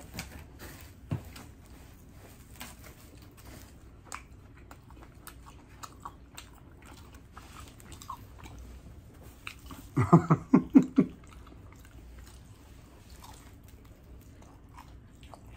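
A man biting into and chewing a New York-style cheese pizza slice, with small wet mouth clicks and the crisp crust crunching. About two-thirds of the way through comes a brief, loud run of several quick pitched sounds.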